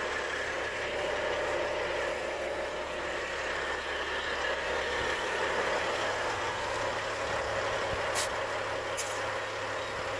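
Steady running of a machine, an even noise with no change in level throughout, with two short sharp clicks about a second apart near the end.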